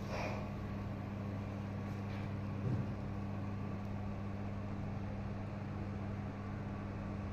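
A steady low machine hum, with a single soft knock about two and a half seconds in.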